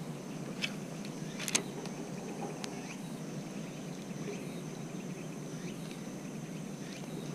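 Outdoor background of insects calling as one steady, thin, high buzz over a low steady rumble. A few faint clicks fall in the first three seconds.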